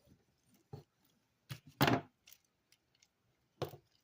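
Hard plastic toy parts clicking and knocking as pieces of a transforming figure and its upgrade kit are handled and fitted: a handful of sharp clicks, the loudest a little before halfway, another near the end.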